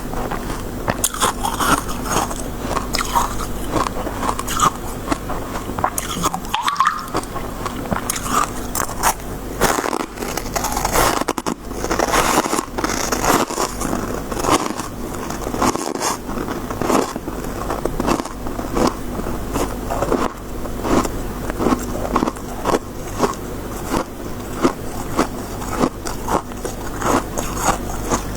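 Close-up biting and chewing of soft, snowy freezer-frost ice: a rapid run of crisp crunches and crackles, several a second.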